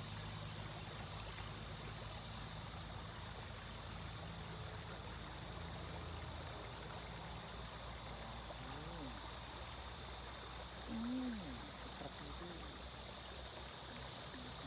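Steady rushing of water from a small waterfall on the river. In the second half a few short tones slide up and back down, the loudest about eleven seconds in.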